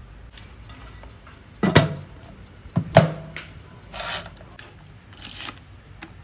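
Kitchen handling sounds: two sharp knocks of hard kitchenware set down or bumped, a second or so apart, followed by two short rustling scrapes.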